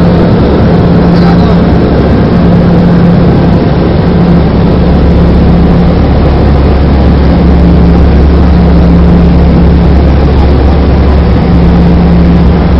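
Small plane's engines and propellers droning steadily, heard from inside the cabin: a loud, even drone with a deep hum and a steady low tone that dips briefly a couple of times.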